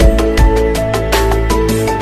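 Background music with a beat: held melody notes over regular low drum thumps.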